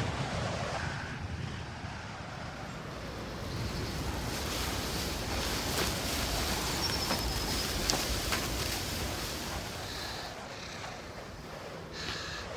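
Steady rushing noise, with a few faint clicks and a short high whistle about seven seconds in.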